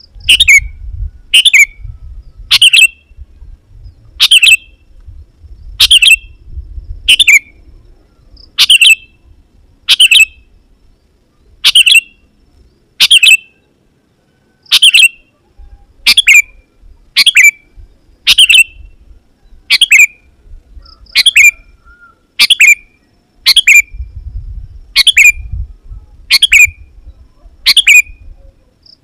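Sooty-headed bulbul (kutilang) calling loudly over and over: a short, sharp, downward-sliding note about once every second or so, the repeated calls used to lure wild bulbuls.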